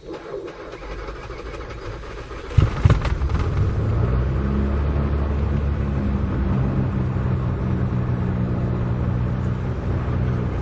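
Cessna 172's piston engine turning over on its electric starter, catching about two and a half seconds in with a couple of sharp coughs, then running up and settling into a steady idle.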